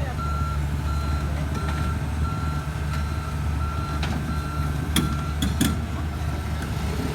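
Heavy diesel machinery running with its back-up alarm beeping steadily, about three beeps every two seconds. A few sharp metallic clanks come about five seconds in.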